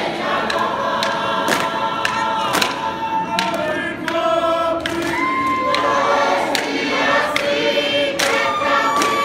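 Large group of Tongan lakalaka performers singing together in long held notes, with sharp claps cutting through at uneven intervals.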